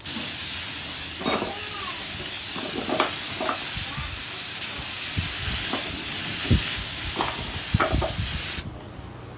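Paint spray gun hissing steadily as it lays the first coat of blue candy paint onto a motorcycle body panel; the spray starts abruptly and cuts off suddenly near the end as the trigger is released.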